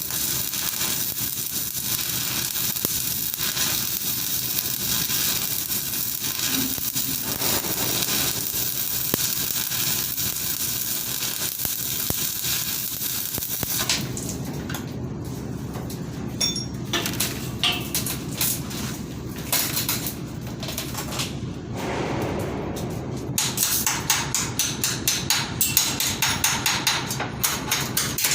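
Crackling hiss of an arc welding bead, which stops about halfway through. It is followed by scattered hammer blows, then a fast run of about three blows a second near the end.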